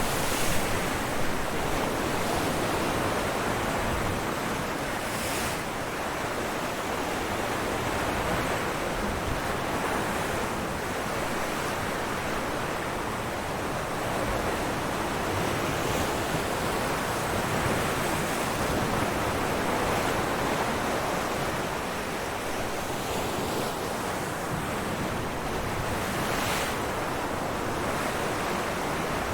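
Ocean waves breaking against rocks: a continuous wash of surf that swells and eases, with a few sharper splashes.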